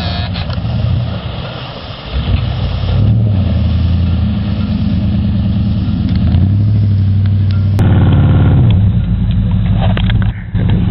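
Pickup truck engine running and revving under load as it pushes through deep mud water. After a cut about eight seconds in, a truck engine revs up rising in pitch as it climbs a sandy hill.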